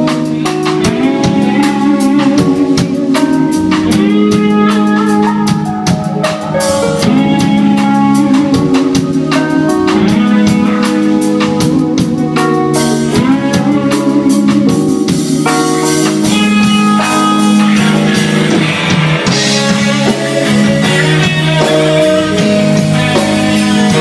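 A live band playing through a sound check: sustained melodic instrument lines over a drum kit keeping a steady beat, loud and continuous.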